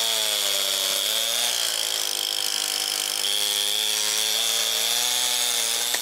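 Small petrol power-tool engine running hard under load. Its pitch sags about one and a half seconds in and picks back up a couple of seconds later.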